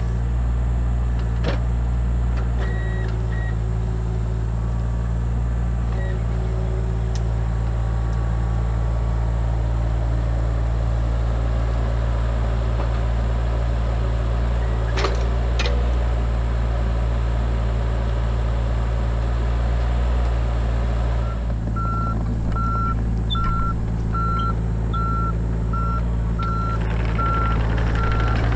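Mini excavator's diesel engine running steadily, with a few sharp knocks about halfway through. About three quarters of the way in, its travel alarm starts beeping, about one and a half beeps a second, as the machine moves.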